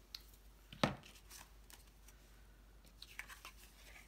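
Cardstock pieces being handled on a cutting mat: one sharp tap about a second in, then a few light paper rustles and clicks around three seconds in.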